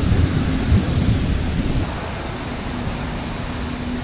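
Wind buffeting the microphone outdoors, a fluctuating low rumble over the steady noise of a city square.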